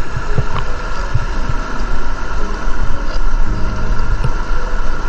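Water sloshing and rushing around a camera held at the river's surface, with irregular low thumps and wind on the microphone. A faint steady hum runs underneath.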